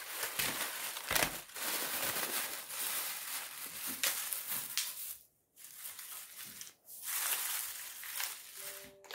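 Paper scraps and a plastic bag crinkling and rustling as the scraps are shaken out onto a table and spread about by hand, with two short breaks.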